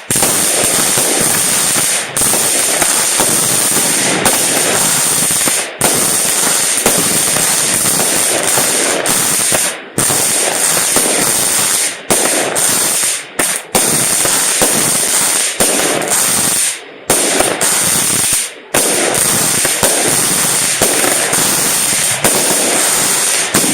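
Consumer fireworks going off in a loud, continuous barrage of rapid bangs and crackling for over twenty seconds, with only a few brief gaps, then stopping abruptly at the end.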